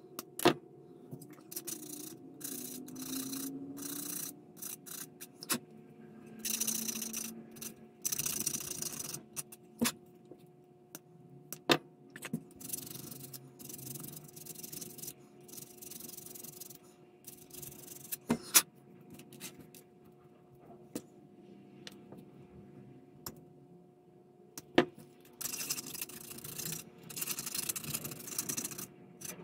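A thin plastic rod snipped with side cutters, a sharp click just after the start, then small plastic pieces rubbed back and forth on a hand-held sheet of sandpaper in scratchy bursts of several seconds, with a few more sharp clicks between them. A faint steady hum sits underneath.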